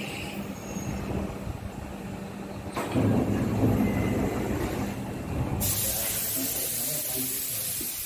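Shin-Keisei 8800-series electric train standing at the platform with a steady hum; about three seconds in its doors open with a sudden pneumatic rumble, and past halfway a steady hiss of released air starts.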